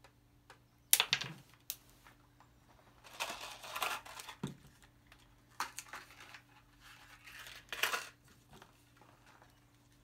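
Irregular rustling and scraping handling noises with a sharp click about a second in, over a faint steady hum.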